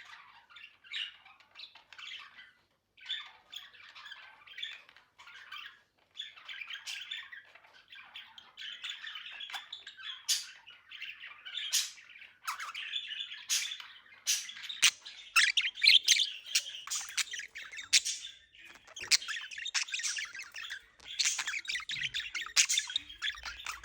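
Budgerigars warbling and chattering, with short squawks and clicks mixed into the song; the chatter grows denser and louder about halfway through.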